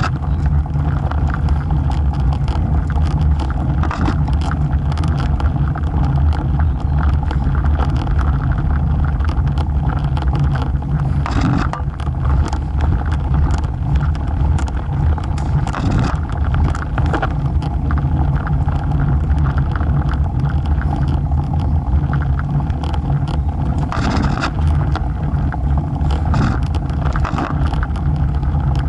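Riding noise from a road bike in motion: wind rushing over the bike-mounted microphone and the tyres rolling on asphalt, a steady low rumble with a few brief clicks.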